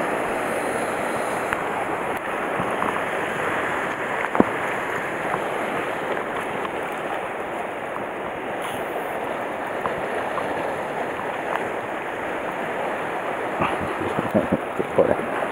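Sea surf washing and surging against the rocks below, a steady rushing noise, with one sharp click about four seconds in and a few lighter ticks near the end.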